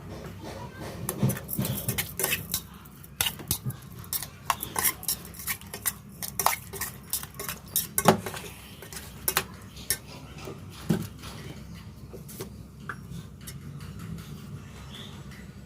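Metal utensils clinking and tapping against dishes in irregular bursts of clicks, busiest through the first ten seconds and sparser after, over a low steady hum.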